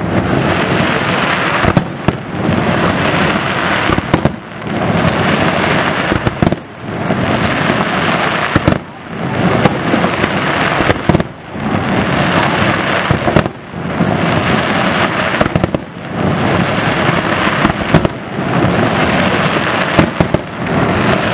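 Aerial firework shells bursting in a steady series: a sharp report about every two seconds, with a dense crackling wash filling the time between reports.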